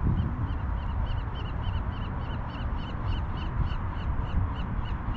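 A bird calling a rapid series of short, high chirping notes, about four a second, growing stronger and then fading near the end, over a low rumble of wind on the microphone.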